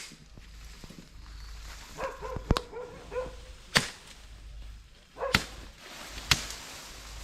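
Machete blows chopping into wood and brush: four sharp strikes, irregularly spaced about a second or more apart.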